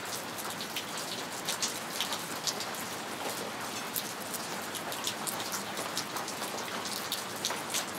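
Steady rain falling, with many separate sharp drop strikes heard close by throughout.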